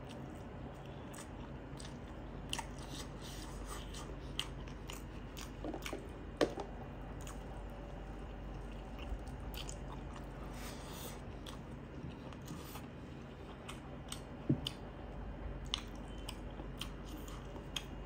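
A person chewing a mouthful of rice and buffalo curry eaten by hand: soft chewing with scattered short smacks and clicks, the sharpest about six seconds in and again near fifteen seconds.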